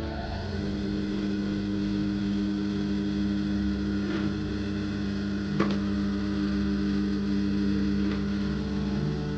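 Typical industrial sewing machine switched on and idling, its motor giving a steady hum while no stitching is done. A sharp click about halfway through.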